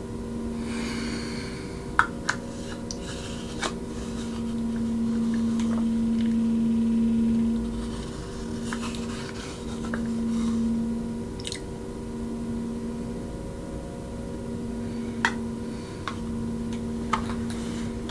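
A steady low hum, louder for a few seconds in the middle, with a handful of scattered sharp clicks.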